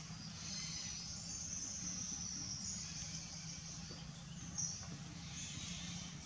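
Outdoor ambience: a shrill, high-pitched insect chorus that swells about half a second in, with a brief louder chirp about four and a half seconds in, over a low steady hum.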